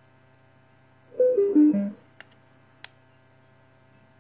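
Karaoke microphone's built-in speaker playing a short chime of four falling notes about a second in as its mode button is pressed, followed by two sharp button clicks. A faint steady electrical hum runs underneath.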